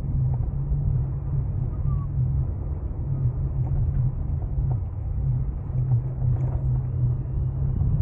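Steady low rumble of a bicycle ride: tyres rolling over the road surface, with wind on the microphone.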